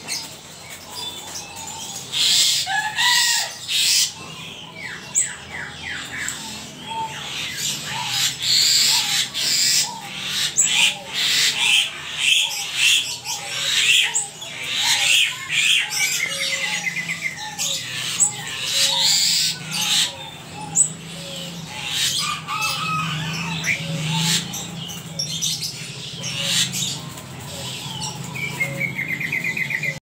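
Caged koak kaok, a friarbird, calling over and over with a busy mix of harsh, chattering calls and short clipped notes, starting about two seconds in and going on without a break.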